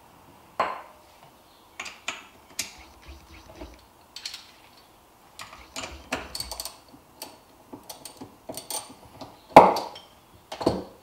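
Scattered metallic clicks and clinks of hand tools and small carburetor parts being handled as a 2004 KTM 85 SX carburetor is taken apart, with two louder knocks near the end.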